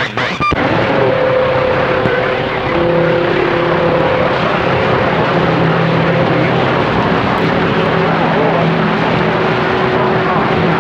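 CB radio receiver on an open channel playing loud, steady static hiss with several steady whistling tones coming and going over it: band noise and carriers heard while working DX skip. A short click about half a second in.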